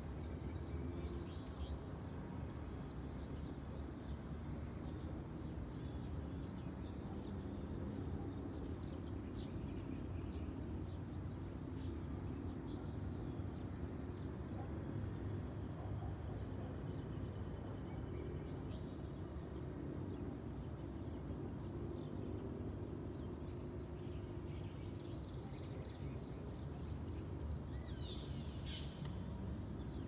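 Birds chirping in a dawn chorus over a steady low hum of distant traffic, with one louder bird call sweeping down in pitch near the end.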